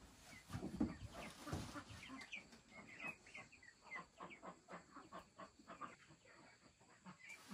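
Chickens clucking in a faint run of short, repeated calls, some of them high and rising.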